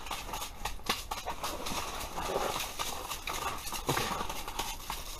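Freshly landed brook trout flopping and slapping on the ice, a fast irregular run of wet thumps and knocks.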